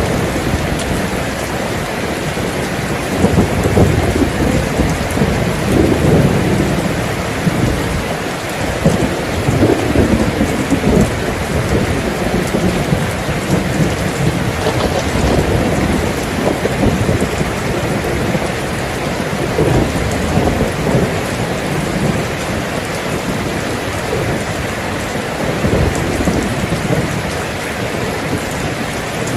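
Steady heavy rain, with low rolling rumbles of thunder swelling and fading, strongest in the first half.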